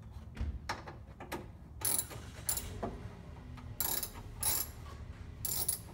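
A 10 mm ratcheting wrench clicking as it backs out a bolt: a few light ticks, then about half a dozen short bursts of ratchet clicks.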